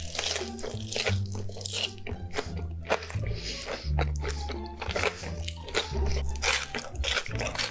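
Close-miked mouth sounds of a man eating cheese-sauce-covered animal-style fries by the handful: biting, chewing and smacking. Background music with a low bass line plays underneath.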